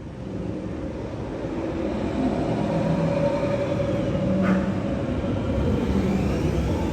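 TRON Lightcycle Run roller coaster train running on its track, building in loudness over the first few seconds, with one sharp click about four and a half seconds in.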